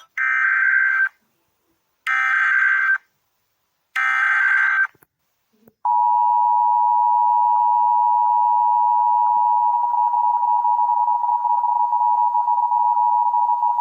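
Emergency Alert System tones: three short bursts of SAME header data, each about a second long, then the steady two-tone attention signal starting about six seconds in. Together they mark the start of an emergency alert, here a National Weather Service severe thunderstorm warning.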